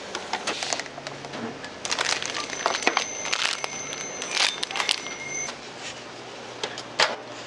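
Plastic food packaging crinkling and rustling as it is handled, with a steady high whine through the middle and a sharp click near the end.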